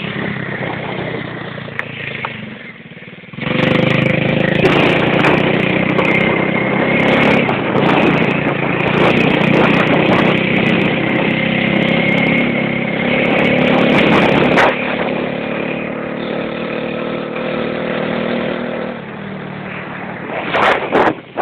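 Motorcycle engine running at a steady pitch, easing off about two seconds in, then louder from about three seconds in until about fifteen seconds, when it drops back somewhat.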